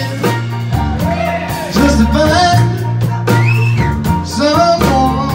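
Live band with acoustic guitar, fiddle and keyboard playing a song, with a man singing lead over held low notes.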